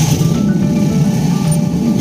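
Background music: held notes over a low bass line.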